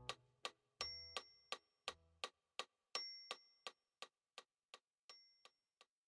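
Background music fading out: a steady ticking beat of about three ticks a second, with a high chime every two seconds; the bass stops about two seconds in and the ticks grow fainter.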